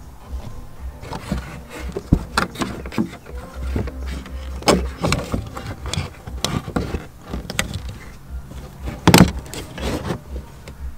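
Audi B8 A4 plastic C-pillar trim panel being worked into place: a series of irregular clicks and knocks as its tabs and clips are pushed into the rear shelf, the loudest a little after nine seconds, over a low rumble.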